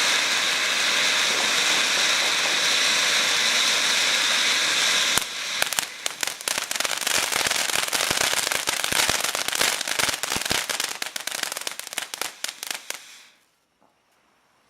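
Fireworks fountain battery burning: a steady hissing spray, then about five seconds in it switches abruptly to dense crackling that thins out and stops shortly before the end.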